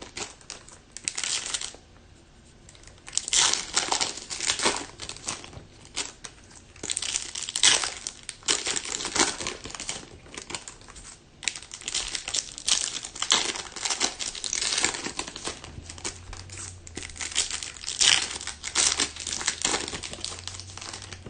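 Foil trading-card pack wrappers crinkling and tearing as packs are opened and handled, in irregular bursts of rustling.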